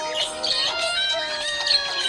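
Music from a children's rhyme track, with several held notes sounding together and one note sliding slowly downward.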